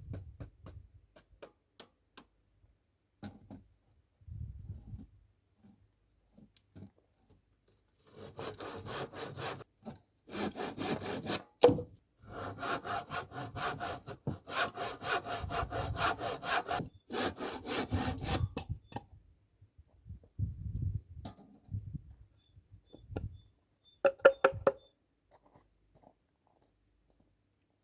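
Wood being sawn by hand in a run of quick back-and-forth strokes, with short pauses between bouts and a sharp knock partway through. Scattered knocks and clatter of wood being handled come before and after the sawing.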